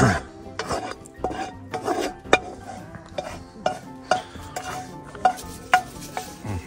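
A metal spoon scraping and knocking against a frying pan as food is served out onto plates: a run of irregular clinks and scrapes.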